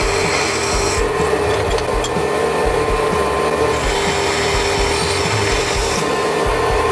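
Drill press running with a steady hum, its twist bit cutting a hole through a steel plate.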